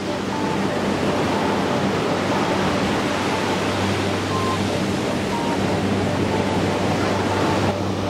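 Ocean surf washing steadily onto the beach, with soft background music under it: a low sustained drone and short, spaced higher notes.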